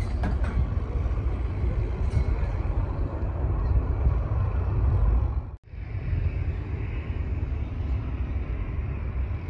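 Jet airliner engines running as a steady, deep noise: a Boeing 737-800 climbing out after takeoff. Just past halfway the sound cuts off abruptly, then picks up again as a Japan Airlines Airbus A350 moves along the runway.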